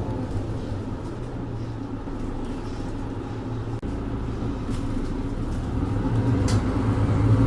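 A Mercedes-Benz Citaro 2G bus's OM470LA inline-six diesel with its ZF EcoLife automatic gearbox, heard from on board. The engine note falls at first and holds steady, then climbs and grows louder as the bus accelerates. A single sharp click comes near the end.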